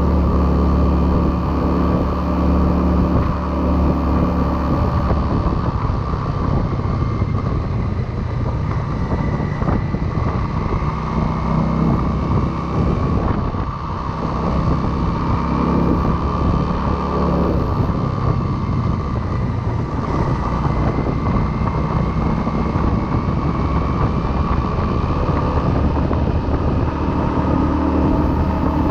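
Motorcycle engine running under way, its pitch rising and falling with speed, with wind rushing over a chest-mounted camera's microphone.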